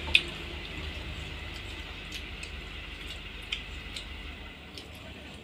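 Quiet sounds of a family eating from plates with their fingers: a few light clicks and clinks, the sharpest just after the start, over a low rumble that fades out about four and a half seconds in.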